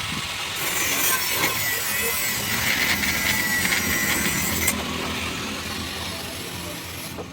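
A cutting tool working steadily: a rasping noise with a thin high whine through the middle, which drops away about two-thirds of the way in.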